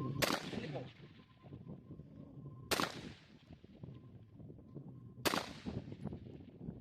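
Three gunshots about two and a half seconds apart, each followed by a long echo fading across the range, with wind rumbling on the microphone between them.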